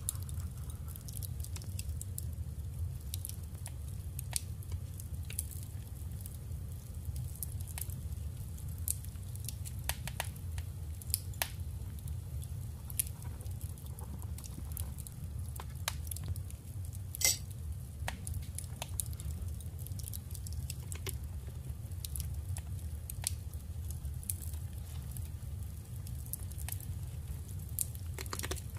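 Paper ephemera and craft supplies being handled at close range: scattered small clicks and taps, with one sharper click about seventeen seconds in, over a steady low hum.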